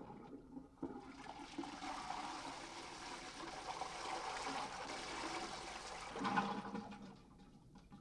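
High-level toilet cistern flushed by pulling its hanging chain: a knock as the chain is pulled about a second in, then water rushing down for about six seconds, with a louder surge near the end before it fades out.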